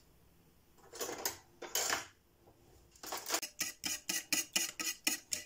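Two short knocks, then raw eggs being beaten with a fork in an enamel bowl, the fork clicking rapidly against the bowl at about five strokes a second.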